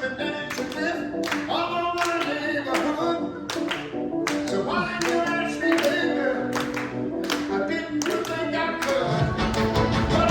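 Song with singing and a steady beat played loud over a restaurant's speakers, with clapping along to the beat about twice a second. The music gets louder and fuller near the end.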